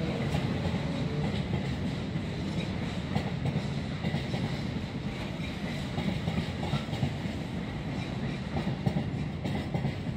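Container freight train's wagons rolling past close by: a steady rumble of wheels on rail, with irregular clicks and clatters as the wheels run over rail joints and pointwork.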